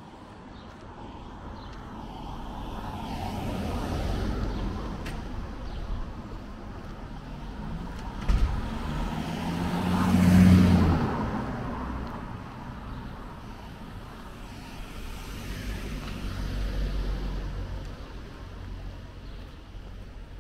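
Cars passing along the street one after another: a first swell a few seconds in, the loudest pass about halfway with a steady engine hum, and another near the end. A single sharp knock just before the loudest pass.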